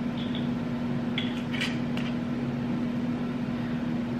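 Steady low hum of kitchen room noise, with a few faint light clicks and clinks of handling at the counter between about one and two seconds in.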